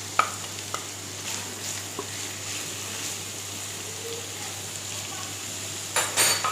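Chicken pieces frying in hot oil with onions and ginger-garlic paste: a steady sizzle, broken by a few sharp clicks and a louder clatter near the end.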